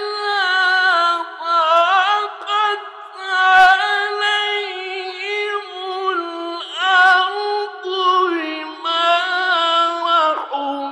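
A man's voice reciting the Quran in the melodic, drawn-out mujawwad style, holding long ornamented notes in phrases broken by brief breaths. The pitch steps down near the end.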